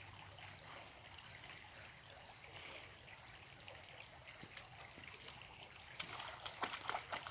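Shallow stream trickling, soft and steady. From about six seconds in, a quick run of small splashes as dogs wade and dip their heads in the water.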